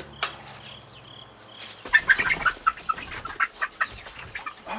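A sharp click from the coop's screen door near the start, then chickens clucking and squawking in quick, loud, uneven bursts for the second half, agitated at a person coming into their coop.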